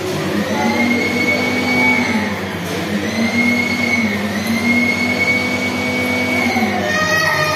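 An electric motor whining steadily, sagging in pitch and recovering three times.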